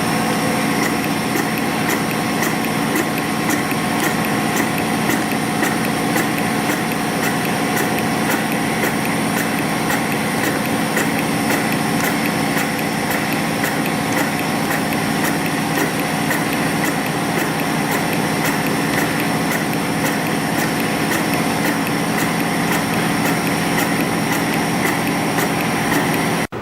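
CNC spring coiling machine (YHM CF-310) running steadily, forming conical springs from 0.4 mm wire. Its motors give a steady hum of several fixed tones, over a fast, even clicking from the forming cycle.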